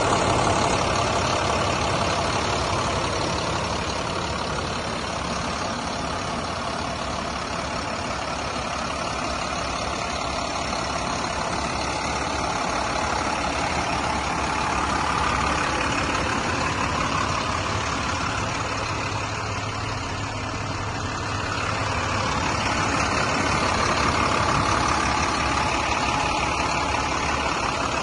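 2008 International 7400 grapple truck's diesel engine idling steadily.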